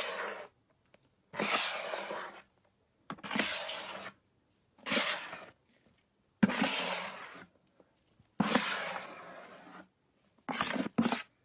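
Repeated breathy bursts from a person, like heavy exhales, each about a second long and coming every one and a half to two seconds, the last a quick double.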